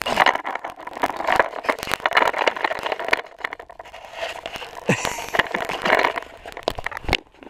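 Handling noise on the camera's microphone: rustling, scraping and crackling with many small clicks as the camera is moved about, ending with a knock about seven seconds in.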